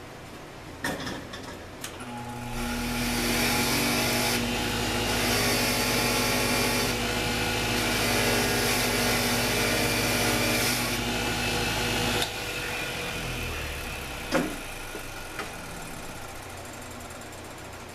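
An electric power tool's motor starts, runs steadily for about ten seconds with a low hum under a harsh hiss that shifts in strength a few times, then shuts off and fades. A couple of clicks come before it, and a single sharp knock follows about two seconds after it stops.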